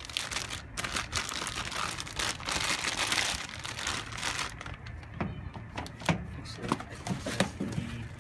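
Clear plastic bag crinkling as it is handled, loudest over the first half. It is followed by lighter rustling and a few small knocks.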